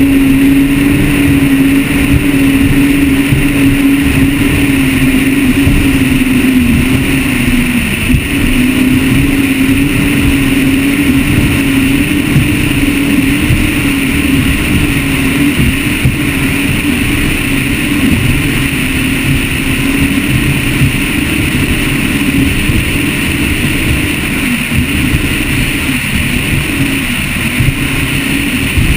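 Mercury engines of a Motion Powerboats 43GT catamaran running at cruising speed: a loud, steady engine drone that dips briefly in pitch about eight seconds in, over rushing water and wind buffeting on the bow.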